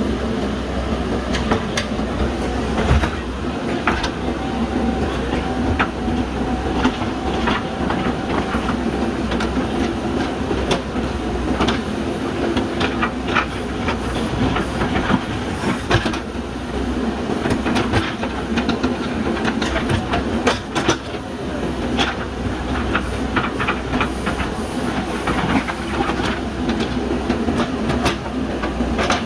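JCB backhoe loader's diesel engine running steadily under load, with frequent sharp clanks and knocks throughout.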